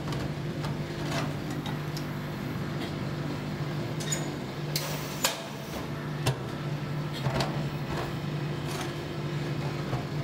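A metal spatula scraping and tapping on a steel ice-cream cold plate as strips of frozen ice cream are pushed up into rolls, giving short sharp scrapes and clicks over a steady machine hum.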